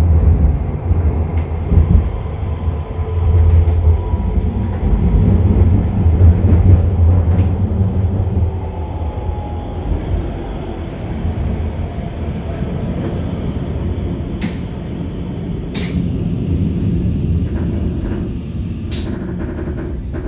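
Subway train heard from inside the car: a heavy low rumble, then the train slows. A faint motor whine falls in pitch and the rumble fades, with a few sharp clicks and knocks in the last few seconds as it comes into a station.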